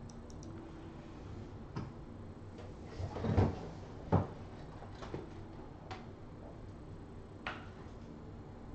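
Several scattered knocks and thumps, like things being handled, set down or shut. The loudest comes about three seconds in, another follows about a second later, and lighter ones come now and then after that.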